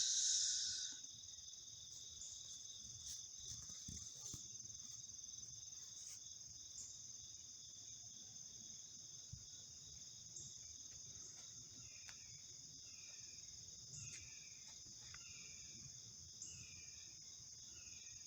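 Faint rural morning chorus of crickets, a steady high trilling. About two-thirds of the way in, a bird starts giving short down-slurred calls, repeating roughly once a second.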